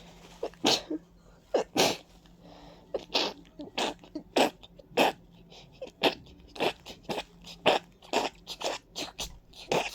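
A rapid, irregular run of short, wet, congested human sneezes, about two a second, from a stuffy, running nose.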